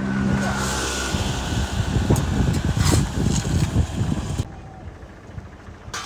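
Farm tractor engine running close by, steady at first, then uneven, and dropping away sharply about four and a half seconds in.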